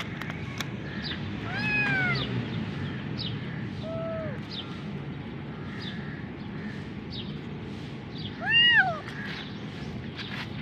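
Young white-and-black kitten meowing three times: a call about two seconds in, a short fainter one around four seconds, and the loudest near the end. Each call rises and then falls in pitch.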